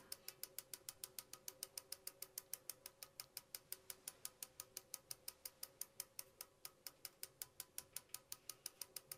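Faint, even clicking, about six sharp clicks a second, steady throughout.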